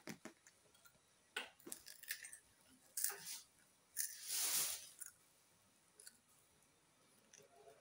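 Scattered short rustling and rubbing noises, five or six in all, the longest and loudest about four seconds in lasting about a second.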